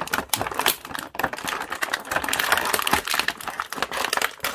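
Clear plastic packaging crinkling and crackling, with many sharp, irregular crackles, as gloved hands squeeze and pull at it to get it open.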